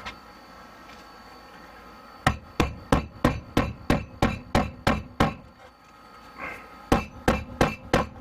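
Hammer blows: a steady run of about ten even strikes, roughly three a second, then a pause and five more near the end.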